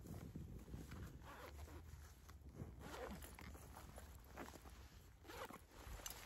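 Zipper on a fabric backpack being pulled closed in a few faint, short strokes.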